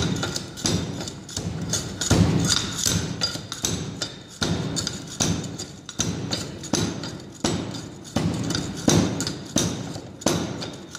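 Hand-operated Proctor compaction rammer: the weight drops inside its metal guide tube onto moist soil in the steel mould, giving a steady run of heavy thuds with a slight metallic knock, about one and a half blows a second. This is the standard Proctor test's blow count being laid into the second of three soil layers, 25 blows per layer.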